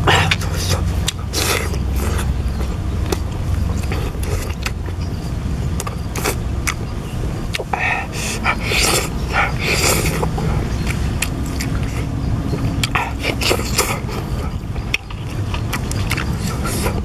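A person eating roast chicken by hand: wet chewing, lip smacks and the tearing of meat and skin, heard as many short crackling clicks, thickest around the middle and again near the end, over a steady low rumble.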